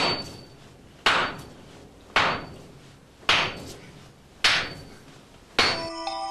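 Six even hammer blows about a second apart, each with a brief high ring, driving a chisel into a glowing block of tamahagane steel on the anvil to cut it lengthwise for folding. Music comes in at the very end.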